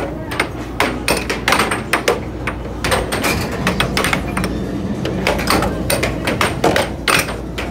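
Air hockey in play: the plastic puck clacking against the mallets and the table's rails in quick, irregular hits, over a steady low hum.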